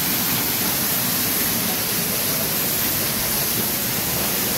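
Waterfall pouring down in a curtain over the rocks: a steady, even rush of water.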